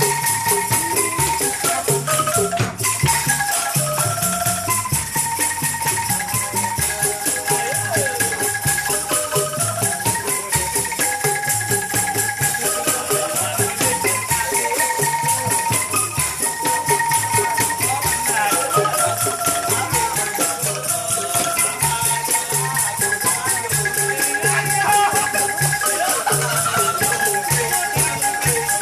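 A bamboo angklung band playing a melody: the tuned tubes are shaken in a fast rattling tremolo, with a drum kit and cymbal keeping a steady beat underneath.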